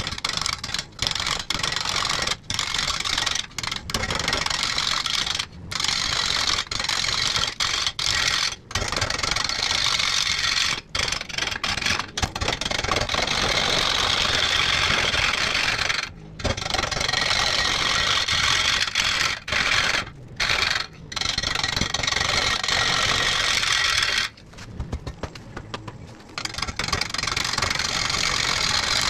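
Bowl gouge cutting into a large blue pine bowl blank spinning on a wood lathe: a loud scraping, hissing cut that comes and goes, broken by many short pauses where the tool lifts off the wood.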